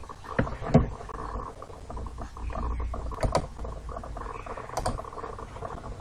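A few sharp clicks, about four, over low rustling and a faint hum: a computer mouse being clicked to work a screen recorder's menu.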